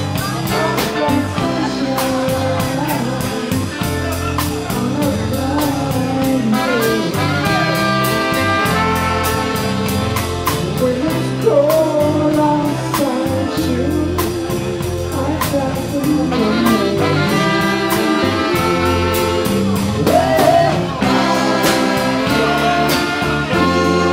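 Live band playing an upbeat song: drum kit keeping a steady beat under bass, electric guitar and keyboard, with a female singer and horn lines including trumpet swelling in about a third of the way in and again near the end.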